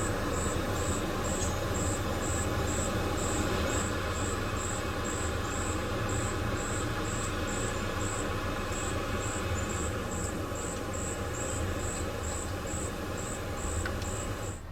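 Crickets chirping in a steady rhythm, close to three chirps a second, over a low steady hum.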